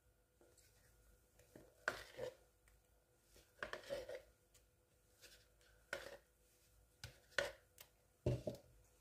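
A kitchen spatula knocking and scraping against a bowl as stiff whipped cream is scooped out and dolloped onto a cake. It makes faint, scattered sharp taps about one every second or so.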